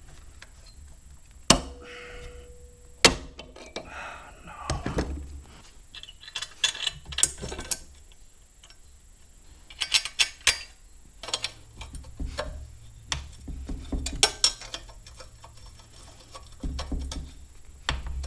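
Hand tools and a steel exhaust pipe clanking and clicking against a small engine's exhaust port as the pipe is fitted and its flange nuts are worked with locking pliers and a wrench. Two loud sharp snaps come in the first few seconds, followed by scattered lighter metal clicks and clinks.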